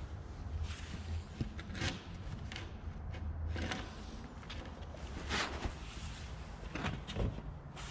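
Wooden casing trim being handled and shifted on a concrete floor: several short scrapes and light knocks, a second or two apart, over a low steady hum.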